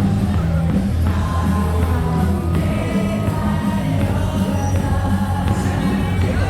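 Music over a baseball stadium's loudspeakers with a large crowd singing along, loud and unbroken.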